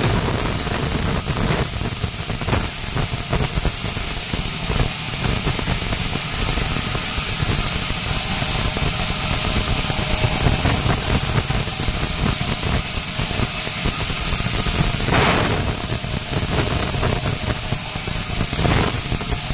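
Saw mill machinery running steadily, a low rumble under a broad hiss with a thin high whine, and a brief louder rush of noise about fifteen seconds in.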